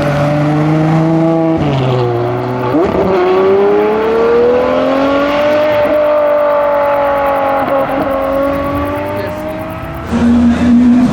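V12 supercar engine accelerating. The note holds, drops sharply twice as if at gear changes about two and three seconds in, then rises slowly for several seconds and eases off a little. A louder engine sound starts abruptly near the end.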